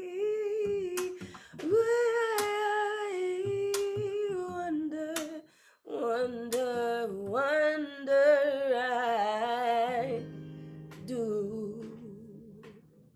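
A woman's voice sings long, held notes over strummed acoustic guitar in the closing bars of a song. About ten seconds in the singing stops and a last guitar chord rings, with one short sung phrase over it, fading away near the end.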